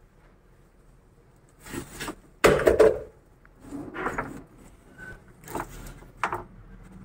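Irregular handling knocks and scrapes of plastic water pipe and fittings being worked by hand, the loudest cluster about two and a half seconds in, then a few sharper knocks near the end.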